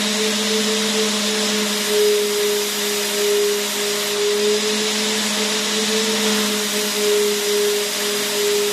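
Vacuum cleaner motor running continuously: a steady hum with a slightly wavering whine over an even rush of air.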